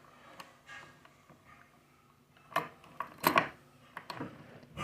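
Vibrating-shuttle sewing machine worked slowly, its mechanism giving a few faint clicks and then several sharp, unevenly spaced metallic clinks in the second half, the bobbin shuttle knocking at the ends of its swing.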